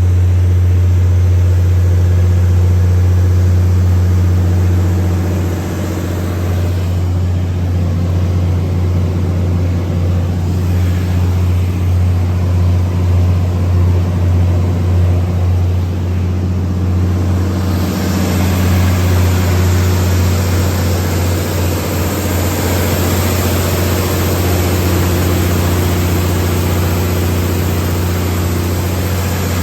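MTU 12V2000 V12 diesel engine of a Kohler 750 kW generator set running steadily at constant speed, with a strong deep hum. About eighteen seconds in, a higher rushing noise grows louder and holds.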